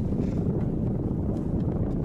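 Steady low rumble of wind buffeting the microphone aboard an inflatable motor boat running on the water.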